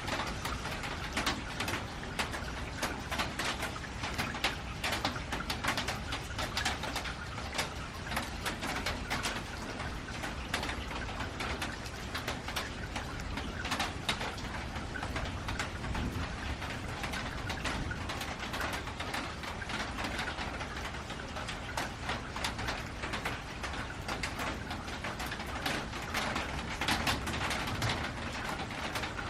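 Steady rain on a metal roof: a dense hiss of rainfall with many sharp individual drop hits on the metal.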